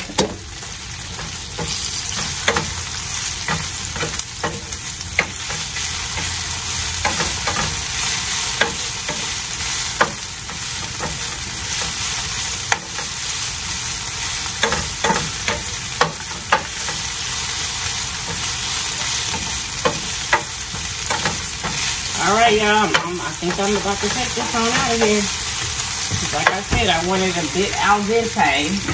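Breaded catfish fillets deep-frying in a large pan of oil with a steady sizzle, while cabbage is sautéed in a skillet with a wooden spatula that scrapes and taps against the pan. A wavering voice sounds briefly near the end.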